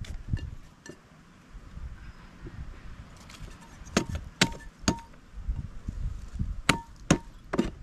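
Potatoes knocking one after another into a hard, ringing container as they are set out to be washed: two runs of three sharp clinks, each about half a second apart, with a short ring after each.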